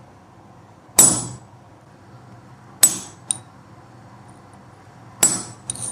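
Hammer striking a chisel held on a small iron pendant blank on the anvil, cutting guide lines into the cold metal. Three sharp blows about two seconds apart, each with a short high metallic ring.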